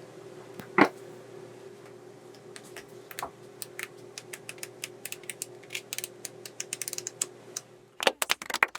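Paper flipbook pages flicking off the thumb: a run of sharp ticks that starts a couple of seconds in and speeds up. Near the end come louder, quicker flicks. A steady low hum lies under the first part.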